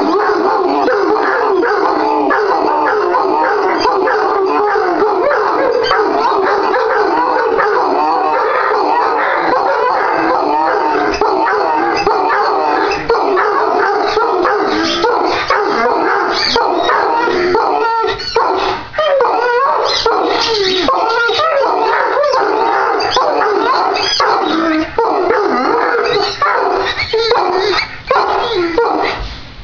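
Several Irish wolfhounds howling together in a sustained, overlapping chorus, set off by a squeaky ball. Barks and yips break in more often during the second half.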